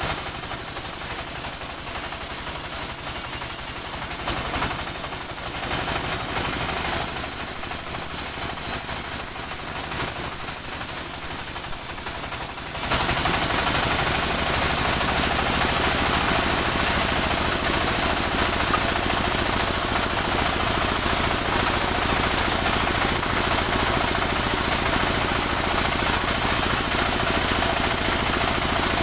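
Portable band sawmill running, its engine chugging steadily with a fast even beat. About 13 seconds in the sound steps up and stays louder as the blade cuts into a trembesi log.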